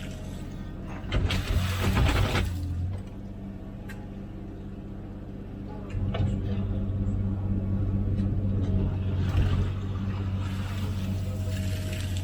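Komatsu PC16 mini excavator's diesel engine running steadily while digging, its note dropping about three seconds in and rising again at about six seconds as the load changes. Rougher, noisier stretches early on and around ten seconds in.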